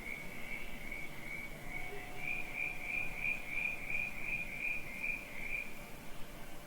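Crickets chirping in a steady rhythm, about three chirps a second, growing louder for a few seconds in the middle over a faint night-time background.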